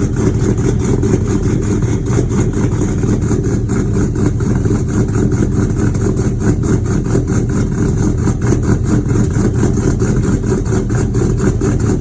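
GM 5.3 L V8 with a custom-grind 230/238 camshaft idling steadily after a cold start, with a rapid, even pulse.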